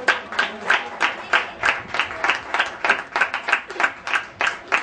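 Hands clapping close by in a steady rhythm, about three claps a second: applause.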